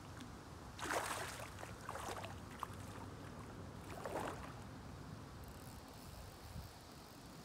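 A hooked carp splashing at the surface close to the bank as it is played on the rod, in short splashes: the loudest about a second in, another at about two seconds and one more at about four seconds.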